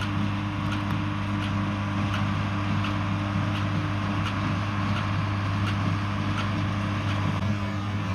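A John Deere 4040 tractor's six-cylinder diesel engine running steadily at working speed while powering a small square baler, with a faint regular clack about every three quarters of a second from the baling machinery.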